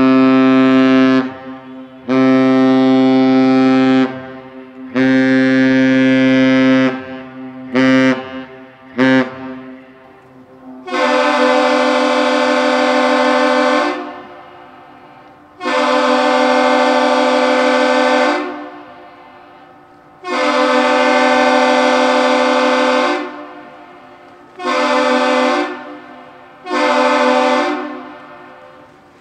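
Ship's horn and the Aerial Lift Bridge's horn exchanging the master's salute of three long blasts and two short. A deep horn sounds three long blasts of about two seconds each and two short ones. A higher, harsher horn then answers with the same pattern.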